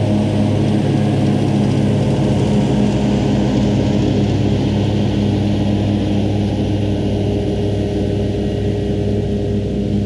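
Claas Arion 530 tractor's diesel engine running steadily under load, together with the spinning discs of its Krone Easycut front disc mower and Kuhn rear disc mower, as it mows away from close by. The steady sound eases a little in the last few seconds as the tractor moves off.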